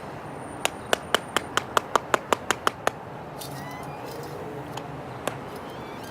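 A quick run of about a dozen sharp clicks or taps, roughly five a second, followed a couple of seconds later by one more single click.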